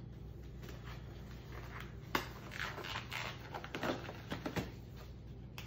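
Nitrile exam gloves being pulled onto the hands: a run of crinkling, stretching and snapping sounds starting about two seconds in, over a low steady hum.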